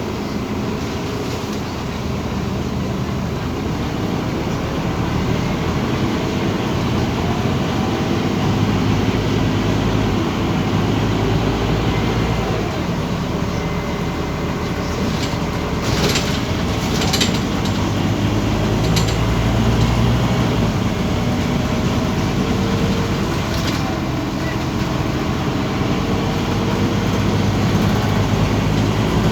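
Scania OmniCity city bus in motion: its diesel engine running and pulling, its low note rising and falling through the gears, over steady road noise. A few short sharp rattles or clicks come in the second half.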